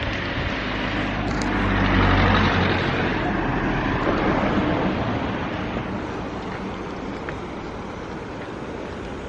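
A motor vehicle passing close by: its engine and tyre noise swells to a peak about two seconds in, then fades away.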